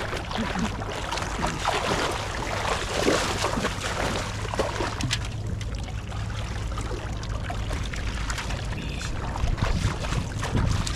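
Shallow pond water splashing and sloshing as a boy kicks and wades through it, heaviest in the first few seconds and again near the end. Wind rumbles on the microphone underneath.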